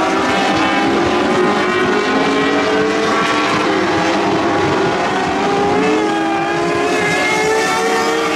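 Several winged sprint car engines running together on the track, a mix of pitches each rising and falling as the drivers get on and off the throttle.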